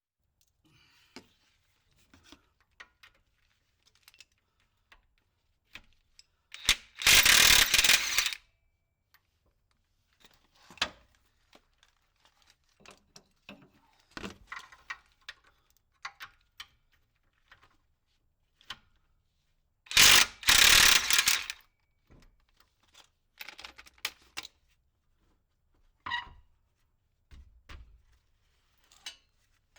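Bolts being undone with a hand ratchet: scattered ratchet clicks and tool clinks, with two loud bursts of about a second and a half each from a power wrench.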